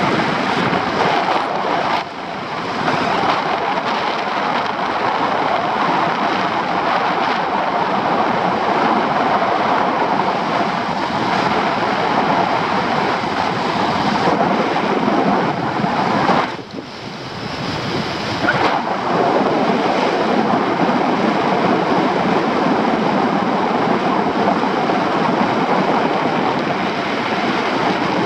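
Steady rush of airflow over the microphone of a camera on a paraglider in flight, easing briefly twice, once near the start and once a little past the middle.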